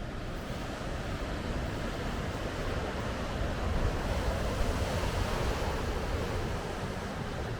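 Ocean waves breaking and washing up the shore, the surf noise swelling to a peak about halfway through, with a low rumble of wind on the microphone.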